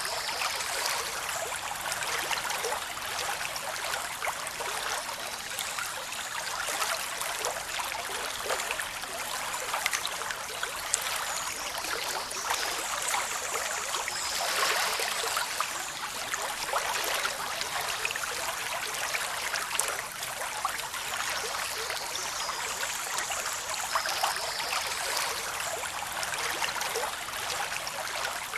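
Waterfall: water rushing and splashing down over rocks in a steady, unbroken hiss, with little deep rumble.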